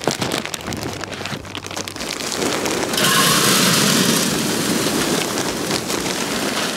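A bag of hickory wood pellets crinkling as it is handled, then, from a little over two seconds in, a steady pour of pellets rattling down into the metal hopper of a Cookshack Fast Eddy FEC100 pellet smoker.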